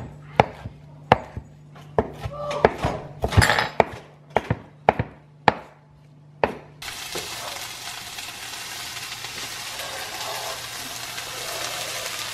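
A knife chopping cilantro on a cutting board: a run of sharp, irregular knocks. About seven seconds in, it gives way abruptly to diced onion and bell pepper sizzling steadily in a frying pan.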